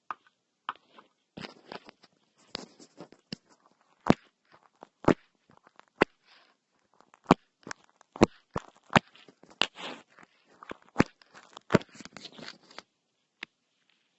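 Slime being handled: a string of irregular, sharp clicks and pops with crackly, squishy stretches in between, thinning to a few single clicks near the end.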